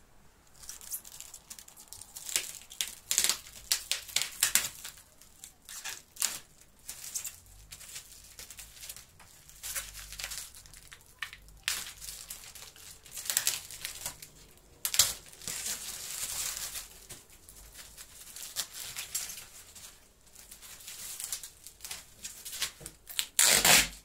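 Black plastic stretch wrap and packing tape being torn and pulled off a cardboard box by hand, the plastic crinkling. The sound is a run of irregular rips and rustles, the loudest near the end.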